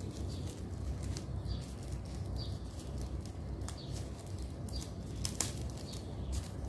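Rustling and crinkling of a white wrapper as it is pulled open by hand, with scattered sharp crackles and one louder crackle about five seconds in. A steady low hum runs underneath.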